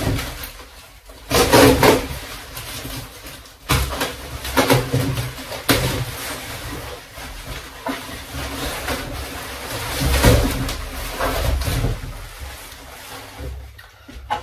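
Bubble wrap and cardboard rustling and crinkling as a wrapped part is pulled out of a shipping box, in irregular bursts, loudest about a second and a half in and again about ten seconds in.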